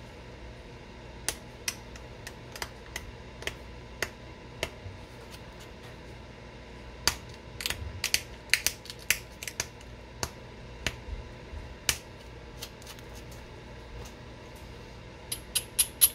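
Stone point being flaked by hand: scattered sharp clicks and snaps as flakes come off the stone, busiest in the middle, then a quick run of about five clicks a second near the end.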